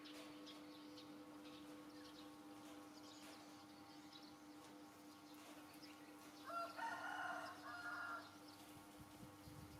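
A single drawn-out animal call, about a second and a half long, a little past the middle, over a faint steady hum.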